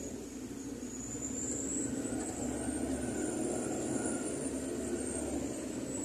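Shuttle bus running, heard from inside the cabin: a steady drone of engine and road noise.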